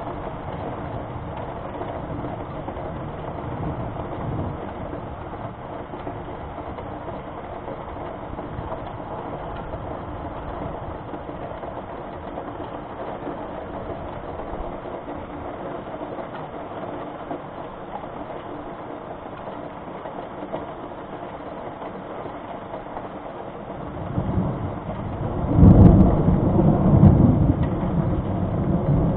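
Steady hiss of rain during a thunderstorm, then about 24 seconds in a long roll of thunder that swells, peaks twice, and keeps rumbling.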